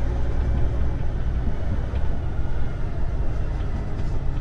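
Semi-truck's diesel engine running as the tractor rolls slowly, a steady low rumble heard from inside the cab.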